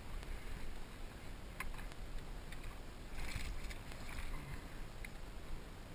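Hooked bass thrashing and splashing at the water's surface while being fought on a topwater lure. The splashing comes in a burst about three seconds in and again briefly a second later, over a steady low rumble.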